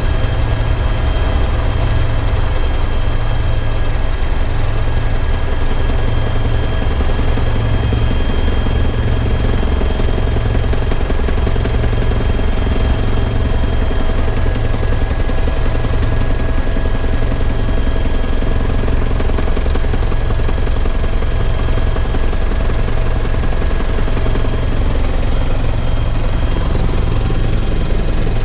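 Bell 412 helicopter in flight, heard from inside the cabin: a loud, steady rotor and engine drone with a slight low pulsing and a steady high whine over it.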